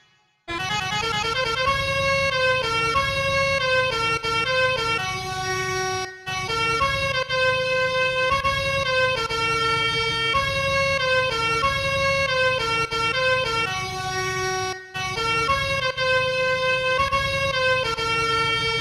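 Telolet bus air-horn melody built from basuri horn samples in FL Studio Mobile: a multi-toned horn steps through a tune in held notes over a low buzzing drone. The tune breaks off briefly about six seconds in and again about fifteen seconds in.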